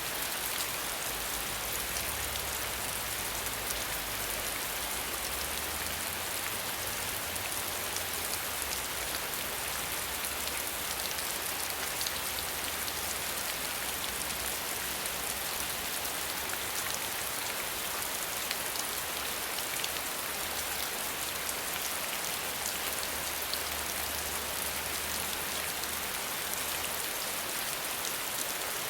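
Steady rain falling and pattering on a surface, an even hiss with fine drop crackle, no thunder.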